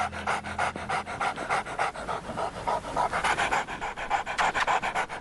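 A dog panting fast and evenly, about five breaths a second.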